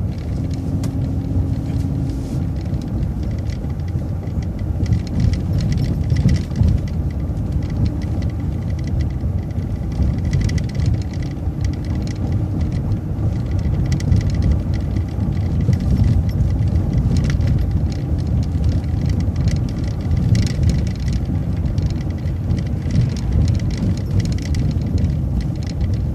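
Inside a moving city transit bus: a steady low rumble of engine and road noise, with frequent light clicks and rattles. A faint steady tone sounds in the first couple of seconds and then fades.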